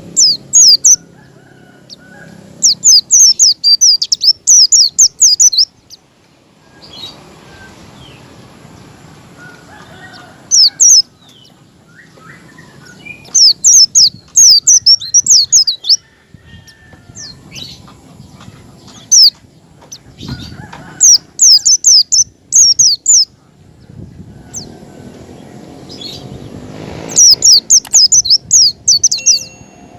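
White-eye (pleci) singing: rapid strings of very high, sharp chirps in phrases of up to about three seconds, repeated several times, over a low background hiss.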